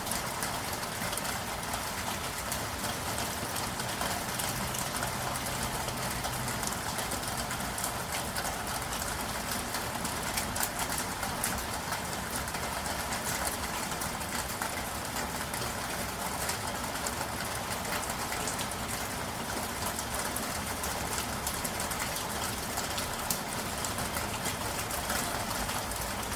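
Steady rain falling, a dense hiss of countless small drop impacts, over a low rumble of city traffic. A brief low hum, like an idling engine, sits under it a few seconds in.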